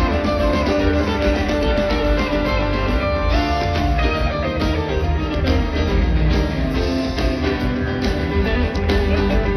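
Live rock band playing an instrumental passage through a large amplified PA, with electric guitars, keyboards, bass and drums, heard from the crowd. Heavy bass underneath, and a note slides upward about three seconds in.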